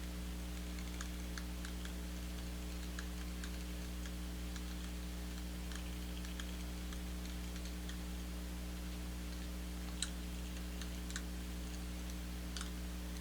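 Steady low electrical hum with faint, scattered light clicks and taps, a sharper tap about ten seconds in.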